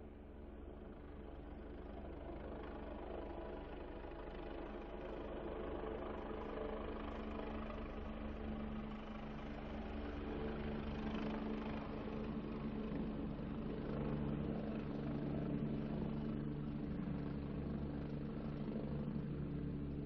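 Helicopter engine and rotors running with a steady hum, growing gradually louder as it comes in to land.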